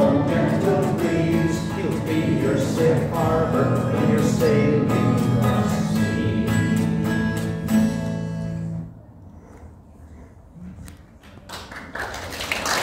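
Acoustic guitar strummed under a man singing the song's closing line; the music stops about nine seconds in. After a short hush with a few small knocks, applause starts near the end.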